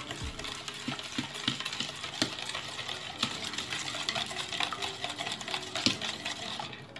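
Wire whisk beating a runny mix of melted butter and sugar in a ceramic bowl: a quick, irregular run of clicks and scrapes as the wires hit the sides of the bowl.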